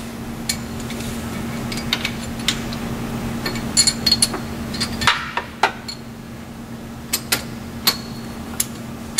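Irregular metallic clicks and clinks of a torque wrench and socket working on the driveshaft coupler bolts of an inboard boat engine, as the bolts are checked to a torque of 25 to 30 foot-pounds. The clicks bunch together around the middle.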